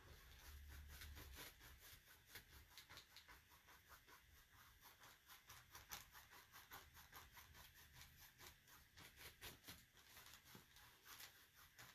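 Faint, quick scratchy strokes of a flat paintbrush spreading yellow paint back and forth across paper.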